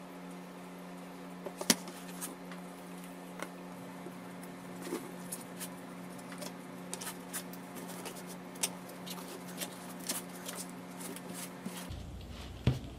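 Light clicks and taps of a glued wooden board being laid onto an MDF fence and pressed into place in a clamping jig, with one sharp click about two seconds in. A steady low hum runs underneath and stops shortly before the end.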